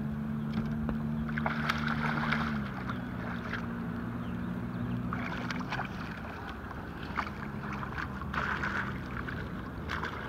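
Outboard motor idling steadily, its pitch dropping a step about two and a half seconds in, with water splashing in short bursts as a hooked channel catfish thrashes at the surface beside the boat.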